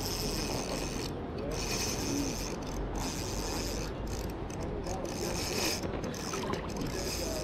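Shimano CI4 fishing reel whirring in repeated runs of about a second with short breaks, as line is worked while a hooked salmon is played.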